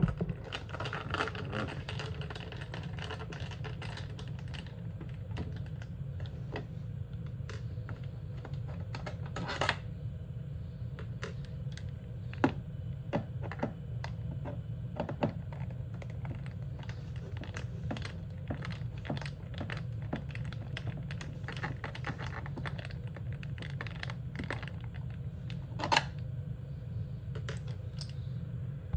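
Light, irregular clicks and taps of a screwdriver working out the screws of a GE dishwasher's door panel, with a few sharper clicks, over a steady low hum.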